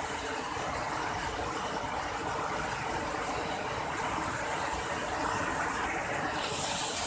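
Steady rush of ocean surf breaking and washing up a beach. A brighter hiss comes in near the end.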